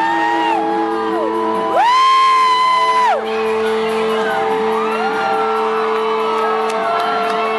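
Live rock band playing a slow song's sustained intro, held tones ringing under the music, while fans close by let out long whoops. The loudest whoop comes about two seconds in and lasts about a second and a half.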